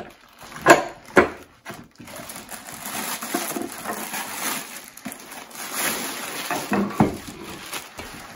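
Plastic packaging rustling and crinkling as stainless steel meat grinder parts are unwrapped and handled, with two sharp metal knocks about a second in.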